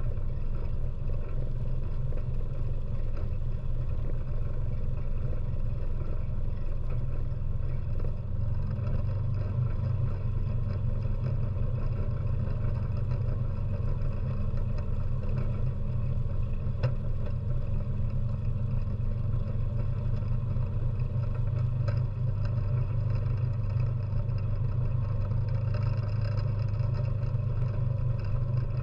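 ATV engine running steadily as the machine drives along, a continuous low drone that lifts slightly in pitch about nine seconds in.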